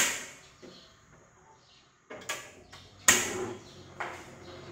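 Gas stove being lit: the igniter knob snaps with sharp clicks, the loudest at the start and about three seconds in, with others around two and four seconds in, until the burner catches and a steady low flame hiss carries on.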